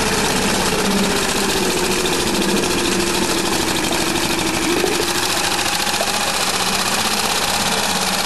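Tohatsu MFS-3.5A 3.5 hp four-stroke single-cylinder outboard running steadily in a water-filled test barrel, its propeller churning the water.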